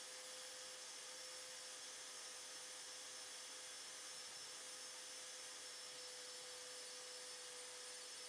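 Random orbital sander with dust extraction running steadily, sanding sprayable polyester filler on a car body panel: a constant hiss with a steady hum under it.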